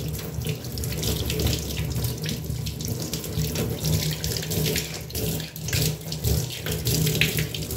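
Tap water running and splashing steadily into a stainless steel kitchen sink as it is rinsed clean of scrubbing cleanser.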